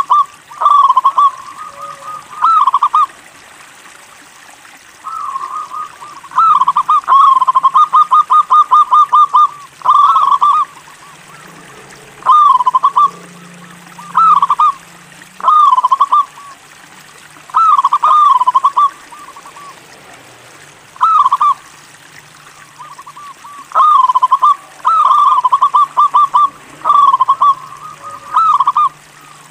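Local perkutut (zebra dove) cooing in repeated short phrases. Some phrases run into quick trains of rapid notes, and there are pauses of a second or two between bouts.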